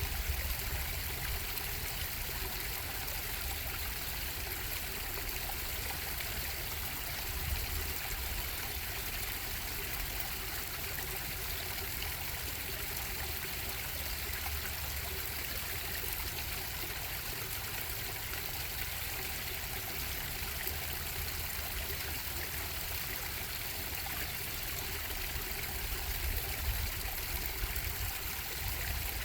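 A bubbling stream running steadily, a continuous rush and trickle of water, with a low rumble underneath.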